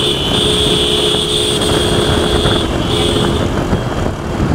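An electric vehicle horn held in long blasts, with two short breaks, stopping about three and a half seconds in. Under it runs constant wind rush and engine noise from motorcycles riding along.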